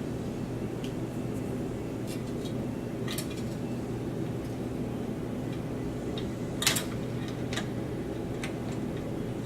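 Scattered small clicks and taps of hard computer parts being handled, the sharpest about two-thirds of the way through, over a steady low hum.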